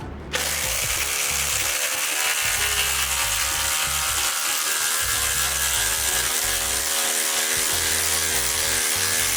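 Cordless impact driver driving a 3/8-inch by 6-inch lag bolt into stacked OSB, starting abruptly a fraction of a second in and running steadily under load. Background music plays underneath.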